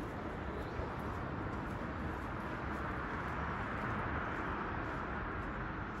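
Quiet city street ambience: a steady hum of distant traffic, swelling a little about four seconds in.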